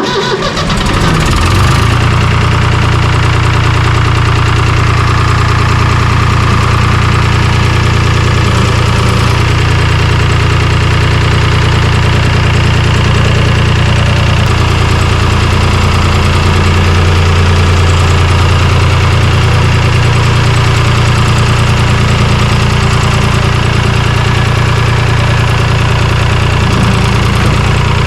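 Tractor engine starting and catching right away, then running at a steady idle.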